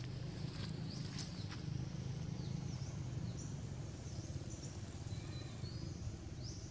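Outdoor canopy ambience: many short, high-pitched animal chirps scattered over a steady low rumble, with a few light clicks in the first two seconds.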